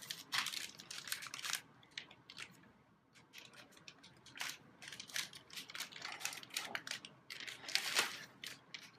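Plastic packaging crinkling and rustling in irregular bursts as a replacement laptop LCD panel is handled, loudest about eight seconds in.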